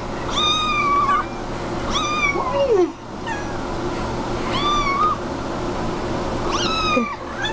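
A domestic cat meowing four times, long calls about two seconds apart, begging for the sardines in an open tin.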